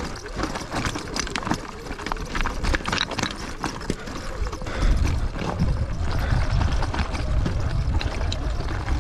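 Loose rocks and pebbles crunching and clattering under the tyres of a Sur-Ron electric dirt bike as it creeps slowly down a steep, rocky slope, in many quick irregular clicks and knocks. A low rumble joins in about five seconds in.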